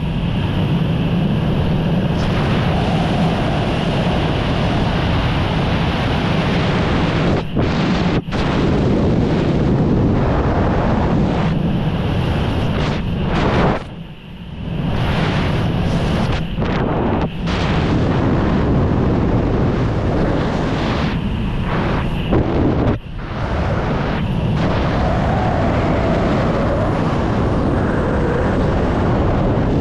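Loud, steady rush of wind buffeting the microphone of a wingsuit flyer in freefall flight, dropping briefly a few times, most deeply about fourteen seconds in.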